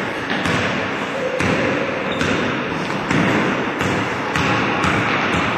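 A basketball bouncing on a gym's wooden floor: several thuds at uneven intervals over a steady background noise.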